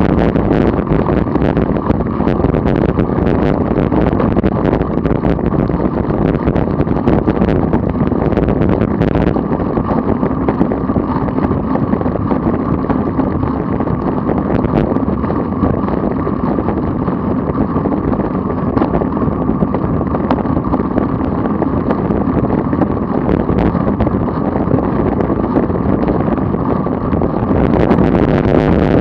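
Steady wind noise on the microphone of a camera mounted on a road bike riding at about 25 mph.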